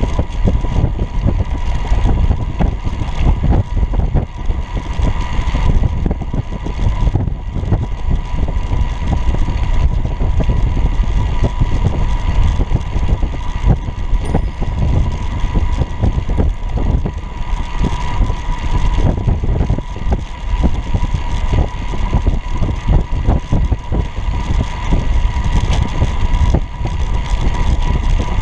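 Wind buffeting and road rumble picked up by a camera mounted low on a moving recumbent low racer bike, a loud continuous rumble jostled by small bumps, with a thin steady whine above it.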